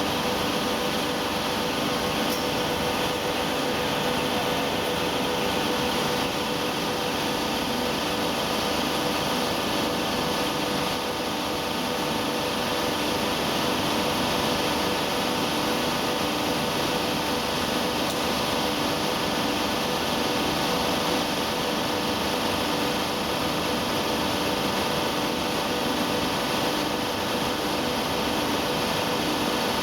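Polyester staple fiber line machinery running steadily: a constant mechanical hum with several steady tones over a noisy haze.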